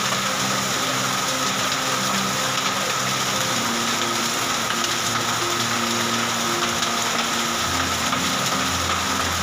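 Rain and hail falling steadily: a dense, even hiss with fine ticking. A low hum comes in near the end.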